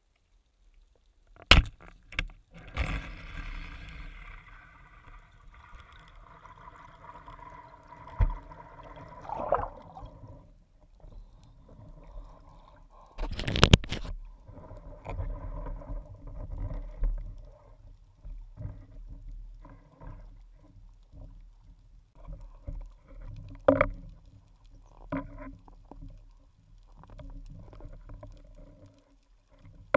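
Muffled underwater sound heard through a diving camera's housing: water movement and gurgling with scattered sharp knocks and clicks, the loudest cluster about 14 seconds in.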